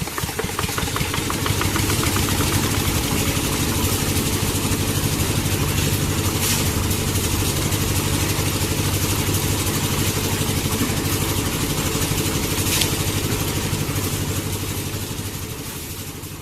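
A small motor running steadily at an even speed, fading away near the end.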